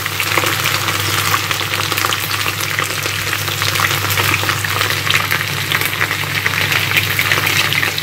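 Sliced potatoes frying in a frying pan: a steady crackling sizzle throughout.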